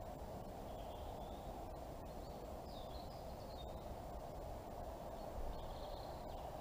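Steady background hum of a night-time neighbourhood, with a few faint high chirps or squeaks now and then.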